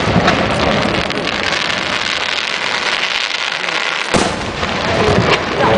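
Aerial firework shells bursting overhead, with a continuous crackle of the display and a sharp, loud bang about four seconds in.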